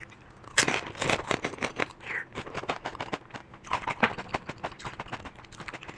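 Close-miked eating sounds: a rapid run of crisp crunches, smacks and wet mouth clicks as food is bitten and chewed.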